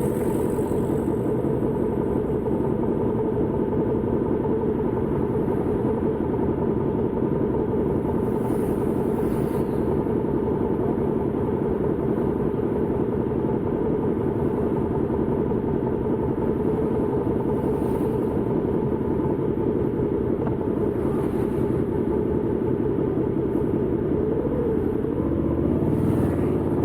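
Suzuki SV650X's V-twin engine running at a steady cruise, mixed with rushing wind, its pitch rising a little near the end as the bike speeds up.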